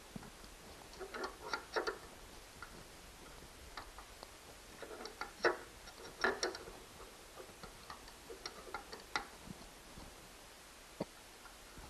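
Irregular small clicks and taps of hand tools working on a treadmill's screws and frame, in scattered clusters with a few sharper clicks near the middle.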